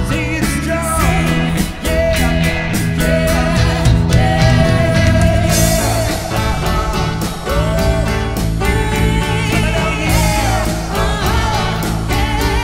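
Live rock band playing: singing over a drum kit and electric guitars, with regular drum and cymbal hits.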